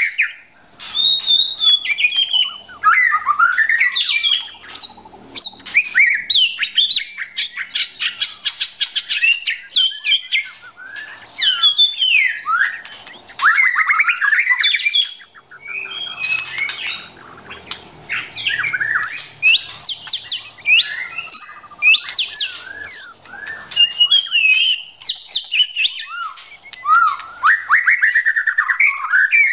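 White-rumped shama calling continuously: short rising and falling whistled notes broken up by bursts of rapid, harsh chattering. These are a female shama's calls of the kind used to stir a male to sing.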